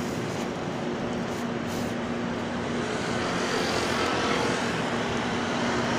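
Steady road traffic noise, with a low steady hum running through it.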